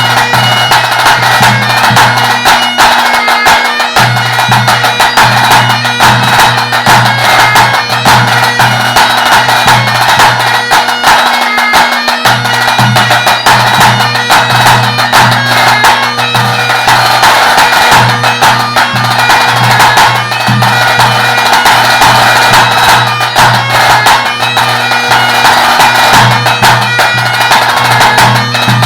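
Great Highland bagpipe playing a tune over its steady drones, with tenor drum strokes beating along in time.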